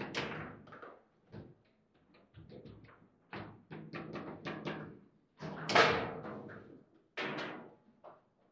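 Foosball table being played: the ball struck by the rod figures and bouncing off the table walls in a quick, uneven run of hard knocks, each with a hollow boom from the table body. The loudest shot comes just before six seconds in.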